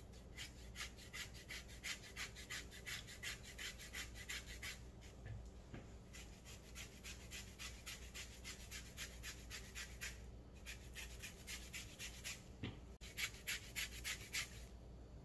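Lemon rind scraped across a handheld flat rasp grater for zest: quick, even scraping strokes, about five a second, broken by two short pauses.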